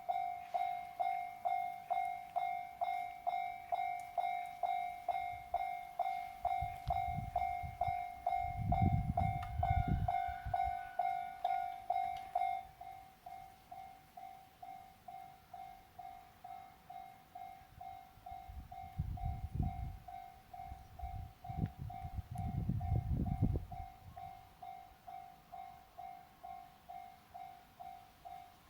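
Japanese railway level-crossing alarm bell ringing about twice a second, dropping to a lower volume about halfway through, while two JR Nambu Line trains pass across the crossing one after the other.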